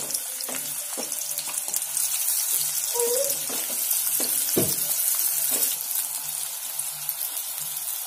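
Sliced onions frying in hot oil in a kadai: a steady sizzling hiss with scattered crackles, just after the onions go into the hot oil.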